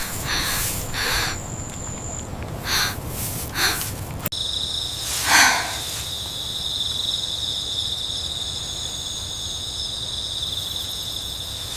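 Field insects trilling steadily, with several short rustling swishes in the first four seconds and one louder rustle about five seconds in.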